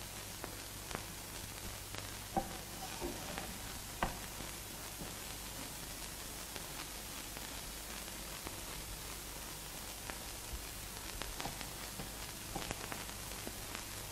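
Steady hiss of an old film soundtrack over a low constant hum, with scattered faint clicks and crackles, most of them in the first few seconds.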